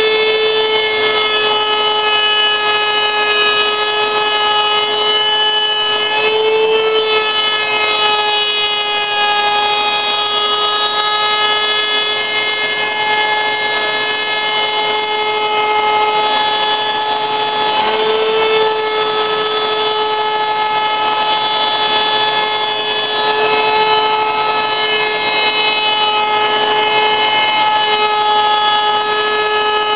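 Electric router running at full speed in a router table, a steady high whine with a dust collector going alongside; the pitch sags briefly twice, around seven and nineteen seconds in.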